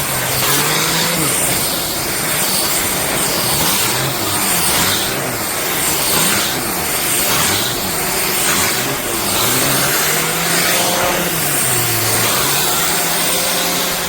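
Shark Stratos upright vacuum running with its pet brush tool, a loud steady whir whose pitch rises and falls every second or two as the tool is worked back and forth and the airflow is choked and freed.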